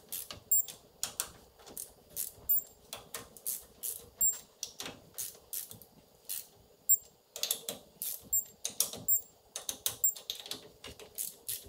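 Hand torque wrench ratcheting in irregular runs of sharp clicks as the Dana 44 differential cover bolts are run down and torqued to 25 ft-lb in a crisscross pattern.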